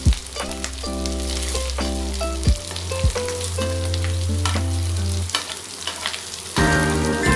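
Crabs sizzling and crackling as they roast in a hot pan, with instrumental background music playing over them; a new, fuller passage of the music comes in near the end.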